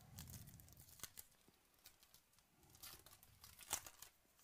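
Faint tearing and crinkling of a baseball trading-card pack wrapper being ripped open by hand. It comes as scattered crackles, with a louder burst of tearing a little before the end.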